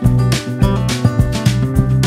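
Upbeat background music with a strummed acoustic guitar and a steady beat.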